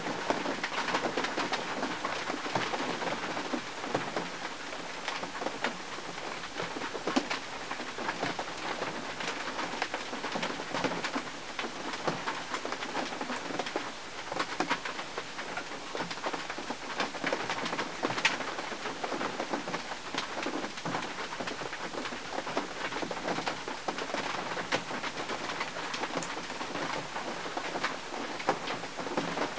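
Rain falling on the windshield and body of a 1951 Mercury: a steady hiss with many separate drops tapping through it.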